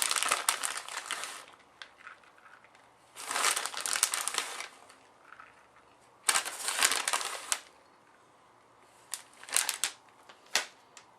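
Plastic bag of shredded cheese crinkling as the cheese is shaken out. It comes in three bursts of a second or so, with a few short crackles and clicks near the end.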